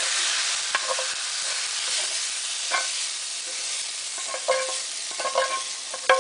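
Pad Thai stir fry with carrots and hamburger sizzling in a hot pan, a steady hiss, while a utensil scrapes and clinks against the pan about six times, more often near the end.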